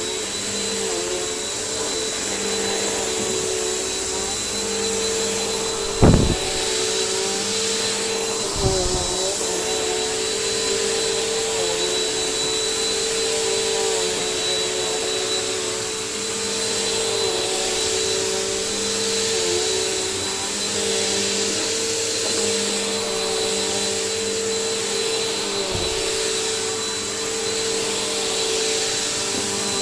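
Bissell PowerForce bagged upright vacuum cleaner running steadily, its motor whine wavering slightly in pitch. Two sharp knocks come about six and nine seconds in, and a lighter one near the end.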